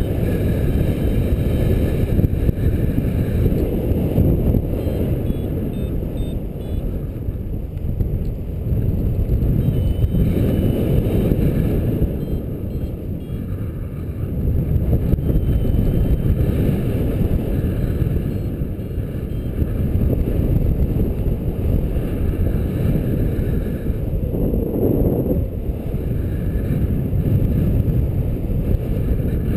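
Wind rushing over the camera microphone of a paraglider in flight, a steady low rumble that swells and eases every few seconds.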